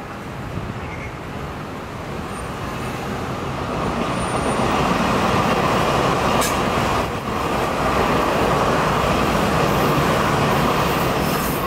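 A train passing: a steady rumbling rush of wheels on the track that builds over the first few seconds and then holds, with a couple of faint clicks midway.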